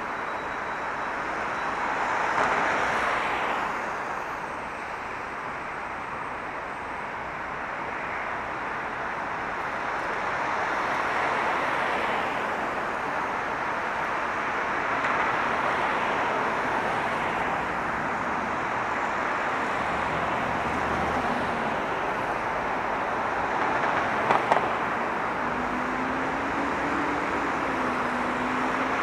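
Steady road traffic: a continuous wash of car tyres and engines, swelling and easing as vehicles pass. A short sharp knock comes about 24 seconds in, and a low wavering hum enters near the end.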